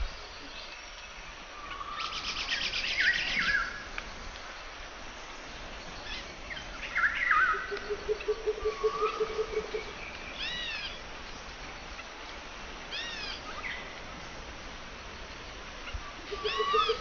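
Outdoor bird ambience, with several birds calling in turn. There is a fast, high buzzy trill a few seconds in, short arched chirps repeated a few times, and a lower pulsing trill twice.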